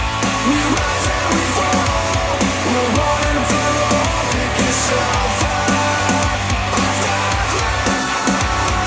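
Instrumental passage of a song played back through a JBL Xtreme 3 Bluetooth speaker: a repeating pattern of notes over a steady bass line, with a steady beat of cymbal-like ticks.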